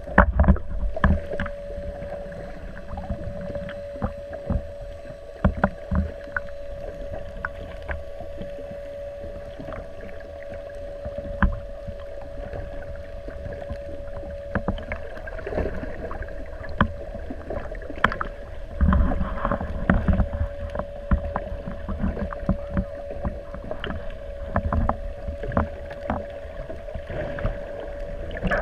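Small fishing boat on the water, with a steady motor hum, low rumble and scattered knocks and clicks throughout.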